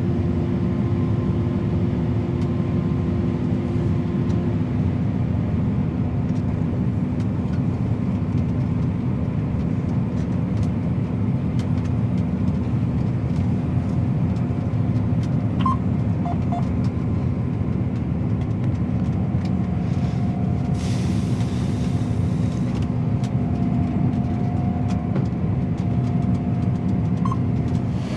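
A combine harvester running steadily, with a loud, even machine drone and a steady hum, during grain unloading into a trailer. A higher tone in the drone stops about five seconds in.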